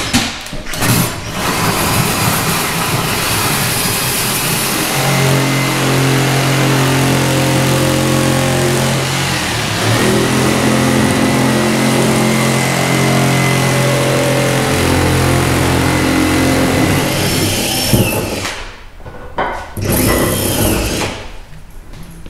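Hand-held power tool cutting a hole through a race car hood panel for the air cleaner and carburetor. It runs steadily for about seventeen seconds, dips briefly about ten seconds in, and stops near the end.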